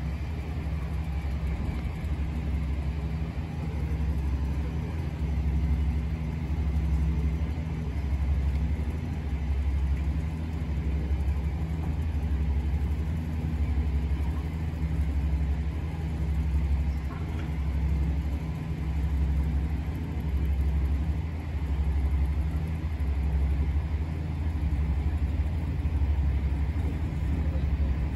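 Diesel locomotive engine idling with a steady low hum that swells and sinks slightly every few seconds, while the locomotive rides the slowly rotating turntable.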